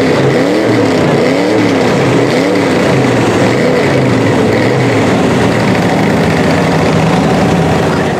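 Lifted Chevy Avalanche mud truck's engine revving up and down about once a second as it churns through deep mud, then holding a steadier note for the rest of the pass.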